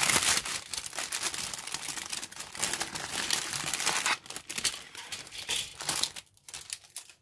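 Thin clear plastic bag crinkling and rustling as a plastic model-kit sprue is slid out of it and the bag is pulled away. The crackling is dense for the first few seconds, then thins into scattered crinkles about six seconds in.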